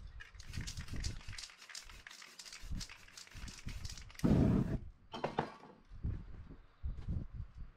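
Aerosol spray-paint can hissing in a run of short bursts over a paper stencil, with a louder rush about four seconds in and a shorter one just after. Low handling thumps and paper rustle as the stencil sheet is moved and lifted.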